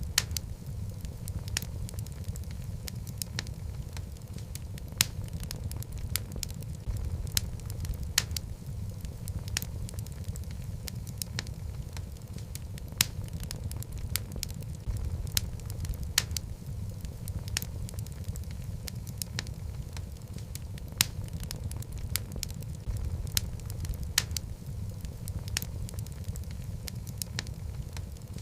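Wood fire of burning logs in a fireplace: a steady low rumble of flames with irregular crackling and sharp pops throughout.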